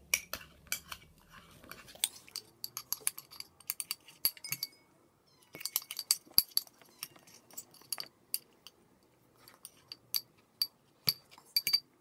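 Metal spoon stirring slime mixture in a ceramic bowl, clinking against the bowl's sides in quick irregular taps, with a brief pause about five seconds in.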